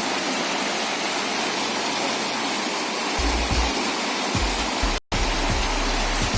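Steady, loud rush of water from heavy rain and flooding drain water. It breaks off for an instant about five seconds in.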